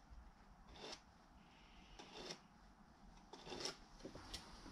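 Faint, short scratches of a pen marking a line across a leather belt blank along the edge of a small square, four or so strokes about a second apart.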